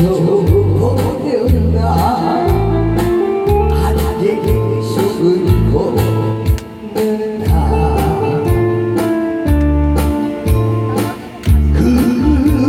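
Music with a steady beat, a repeating bass line and a singing voice.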